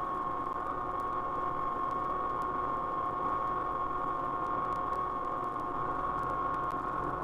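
Science-fiction sound effect from a 1958 vinyl LP: a steady hum of several held tones, the brightest a high tone that barely wavers, over a constant hiss, with faint record-surface clicks.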